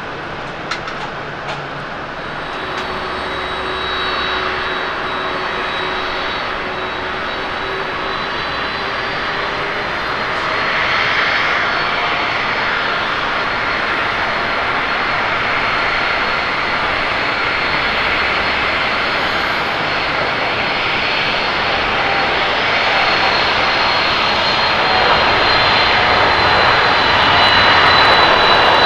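American Airlines Boeing 787-8 Dreamliner's GEnx-1B turbofans at takeoff power during the takeoff roll. The jet noise grows steadily louder as the airliner accelerates toward the microphone, with a high fan whine running through it.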